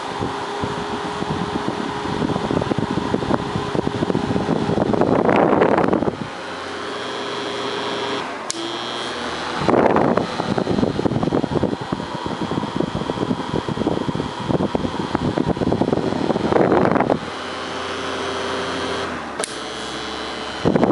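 1970s Arno Super electric fan running: a steady motor hum with a faint whine, and its airflow rushing over the microphone in four strong surges a few seconds apart. Two short sharp clicks come between the surges, one about a third of the way in and one near the end.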